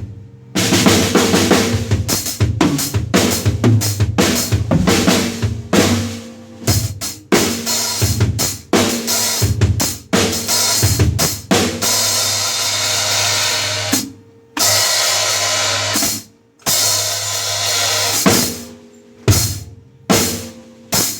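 Drum kit played with Zeus Custom B20 bronze cymbals: snare, bass drum and hi-hat strokes, then sustained cymbal wash in the second half that is cut off sharply several times.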